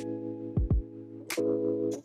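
Music with held chords over a drum beat.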